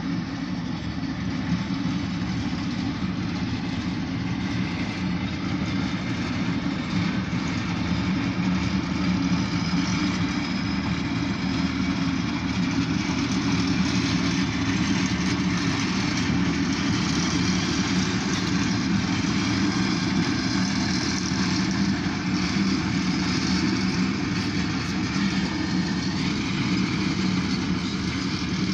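Steady low vehicle rumble with an even hiss, heard from inside a car's cabin as a freight train of covered grain hopper cars rolls past. The hiss grows a little louder after about eight seconds.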